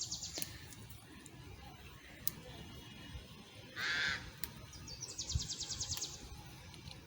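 A crow caws once, loud and about half a second long, roughly four seconds in. A fast, evenly pulsed high-pitched trill follows about a second later, over a faint outdoor background.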